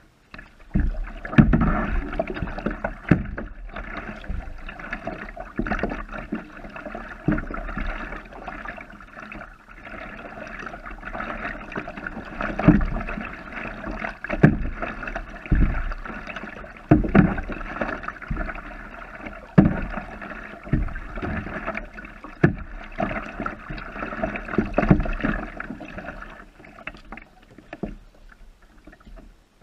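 Kayak being paddled: water washing and lapping along the hull of an inflatable kayak, with a dull knock from a paddle stroke every one to three seconds.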